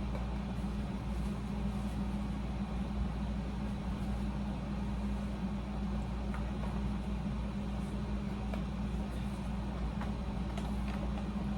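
Room air conditioner running steadily: a constant low hum under an even whooshing noise.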